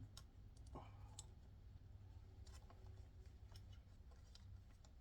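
Faint scattered clicks and taps of small plastic parts being handled as an air hose and cable are fitted into holders on a laser engraver, with one slightly louder knock about a second in, over a low steady hum.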